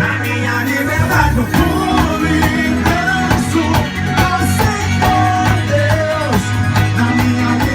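Full band playing a pop-rock song with drums, bass, guitar and a sung or played melody line over a steady beat.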